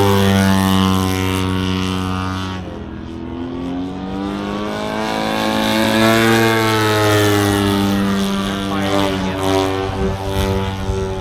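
Radio-controlled model airplane's motor and propeller in flight, its pitch rising and falling as the plane passes back and forth overhead.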